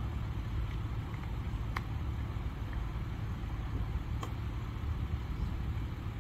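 Steady low outdoor rumble with two faint sharp clicks, one about two seconds in and one about four seconds in, as the car's driver door is unlatched and opened.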